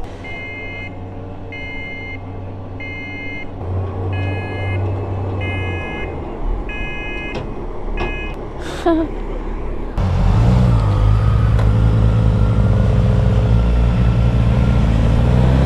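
Reversing alarm on a wheeled amphibious boat, beeping about once every three-quarters of a second for roughly eight seconds over the low hum of its engine. About ten seconds in it gives way to a louder, steady motorcycle engine: the Suzuki GSX-S1000's inline-four under way.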